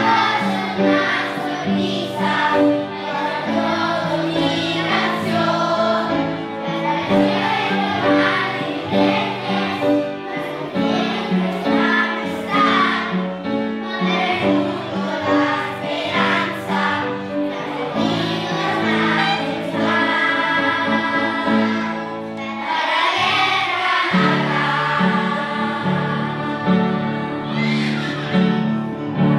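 Children's choir singing a song in Spanish, with instrumental accompaniment holding sustained low notes beneath the voices.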